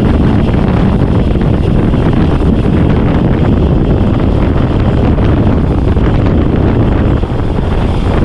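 Loud, steady wind rumble buffeting the microphone of a bike-mounted camera, from the rush of air on a fast road-bike descent.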